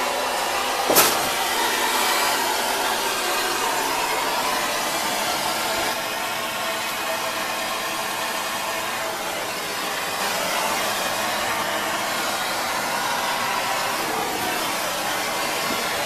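Handheld gas torch burning with a steady, loud hiss as its flame heats a copper pipe fitting for soldering. A single sharp click sounds about a second in.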